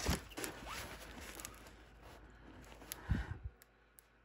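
Clear plastic film over a diamond painting canvas rustling and crinkling as the canvas is handled, with a few light clicks. A soft thump comes about three seconds in, then it goes nearly quiet.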